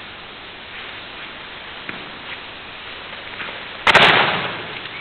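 One loud, sharp slap of a body striking the gym mats during a martial-arts takedown, about four seconds in, ringing on in the echo of a large sports hall. A few faint knocks on the mats come before it.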